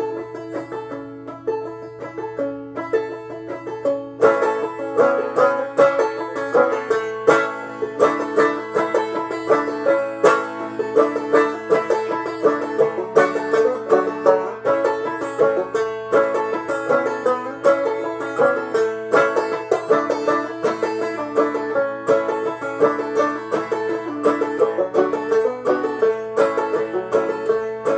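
Clawhammer-style banjo playing an instrumental break: a fast stream of plucked notes over a repeating high drone note, filling out and getting louder about four seconds in.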